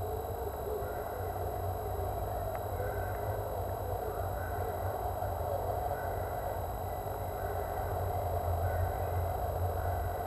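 Steady electrical hum and hiss from a nestbox camera's microphone, with thin high tones held steady throughout.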